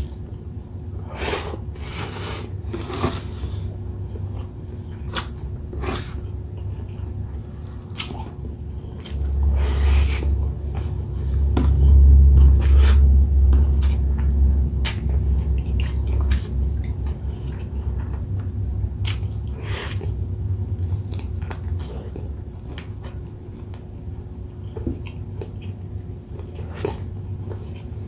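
Close-miked chewing and biting of grilled chicken inasal and rice: wet mouth clicks and smacks throughout, over a deep low rumble that swells loudest in the middle.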